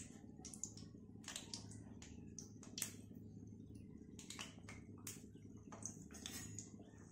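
Thekua dough pieces frying gently in oil and ghee in a kadai: faint, irregular crackling and popping of the fat, over a steady low hum.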